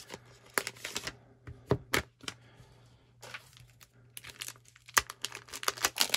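Plastic card pack crinkling and rustling as it is torn open and emptied, with sharp clicks and taps of rigid plastic card holders knocking together as the cards are handled, coming thicker near the end.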